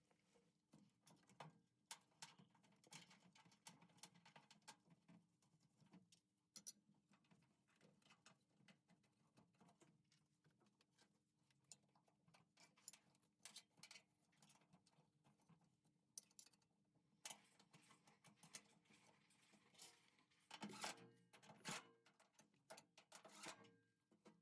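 Faint, irregular clicks, taps and light clatter of parts and tools being handled during a washer drain-pump repair, over a low steady hum, with a louder cluster of knocks about 21 seconds in.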